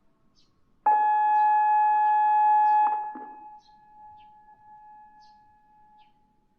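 Single long electronic chime tone from a public disaster-prevention radio loudspeaker, starting suddenly about a second in, held steady for about two seconds, then cut off and echoing for several seconds.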